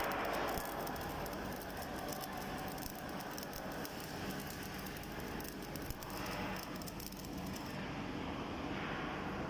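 Electric arc welding on a vertical joint: a dense, fast crackle and sizzle from the arc that stops near the end, over a steady low hum.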